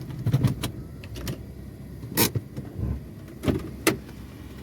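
A series of sharp clicks and knocks, about eight in all, the loudest about two seconds in, over a low steady rumble.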